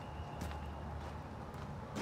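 Outdoor background with a steady low rumble, broken by two faint clicks, about half a second in and again near the end.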